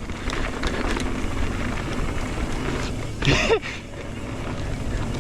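Mountain bike rolling fast down a dirt trail: a steady rush of tyre and air noise with small clicks and rattles from the bike. About three seconds in comes a brief louder sound that falls in pitch.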